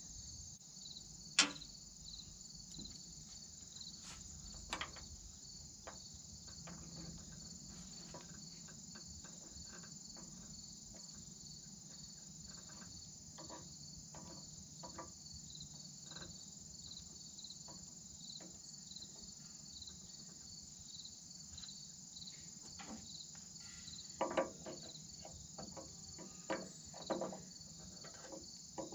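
Steady high insect chorus with a fast, even pulse, over scattered light clicks and knocks of metal hydraulic fittings and a wrench being handled on the loader valve: a sharp click about a second and a half in and a cluster of knocks near the end.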